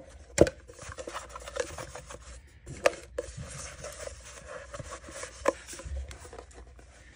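Fingers rubbing and scratching at the plastic burrs around freshly drilled drain holes in a hard plastic flower pot. A few sharp knocks come as the pot is handled and turned over.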